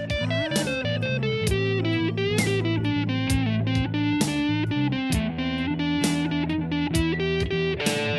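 Instrumental rock music with electric guitar over a steady bass line and a regular beat.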